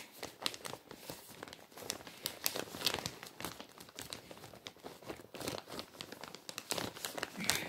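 Clear plastic bag crinkling and rustling in the hands, with irregular crackles throughout as it is handled and folded.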